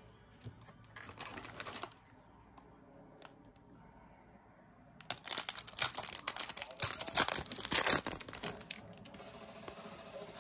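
Foil Yu-Gi-Oh booster pack wrapper being torn open and crinkled. A short rustle comes about a second in, then a longer, louder stretch of tearing and crinkling from about five seconds to nearly nine.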